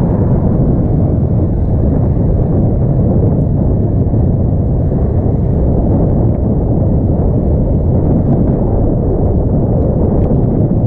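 Steady low rumble of wind buffeting the microphone and a gravel bike rolling over a dirt trail while riding.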